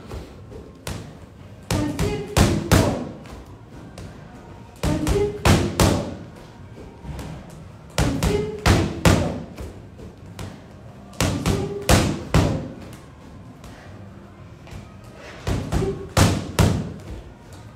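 Boxing gloves punching a freestanding punching bag in four-punch combinations (jab, cross, hook, hook): a quick group of four thuds about every three seconds, five times over.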